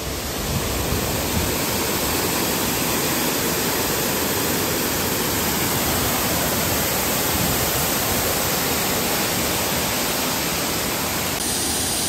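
Water pouring over the rim of a round drop-shaft spillway and falling down the shaft: a loud, steady rush.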